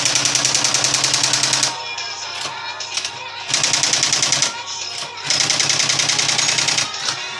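Olivetti Praxis 48 electric typewriter hammering out three rapid runs of evenly spaced keystrokes, a fast machine-gun-like clatter, with a steady low hum between the runs.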